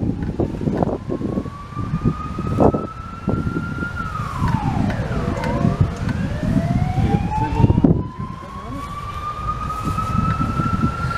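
A siren wailing. Its pitch climbs slowly for about four seconds, drops sharply, then climbs again for about five seconds and begins to fall at the very end. Beneath it is the low, uneven rumble of K-class steam locomotive K153 working its train.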